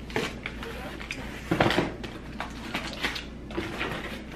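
Cardboard pizza box and slices being handled, with scattered soft rustles and clicks and one louder thump about a second and a half in as the box goes down on the counter.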